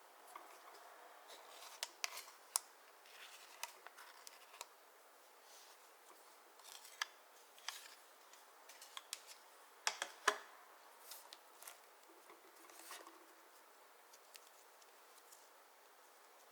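Clear slime being worked by hand with makeup eyeshadow mixed in, giving soft, irregular sticky clicks and small pops, the loudest pair about ten seconds in.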